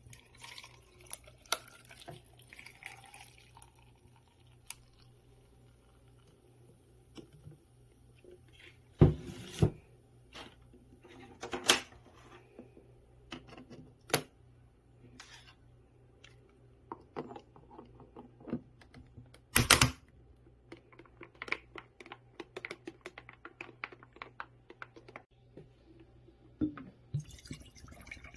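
Ice cubes and a plastic shaker bottle being handled: scattered clinks, clicks and knocks, a few of them sharp and loud. Near the end, liquid pours from the bottle into a glass jar.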